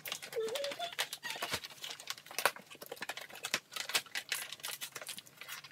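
Packaging rustling and crinkling in a quick, irregular crackle: a cardboard parcel and a plastic mailer bag being handled and opened. A short murmur of a voice about half a second in.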